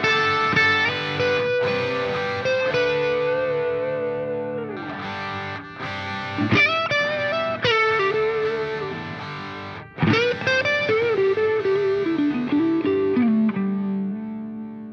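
Background music: a distorted electric guitar plays a slow lead line of long held notes that bend and slide. It fades out near the end.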